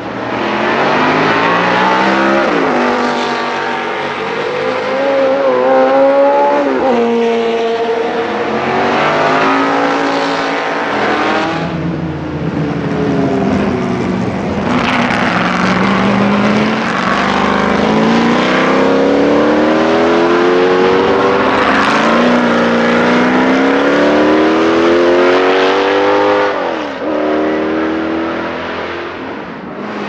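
Lola T70 Mk3B's Chevrolet 5.0-litre V8 racing past, accelerating hard through the gears: the engine note climbs and drops back at each upshift, several times over.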